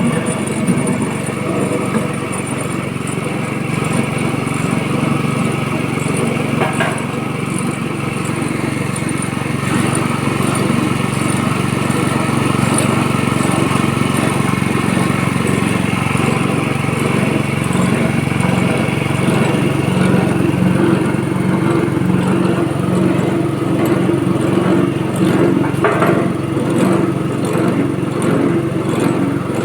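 Coconut milk press machine, type A22, running steadily with an even motor hum.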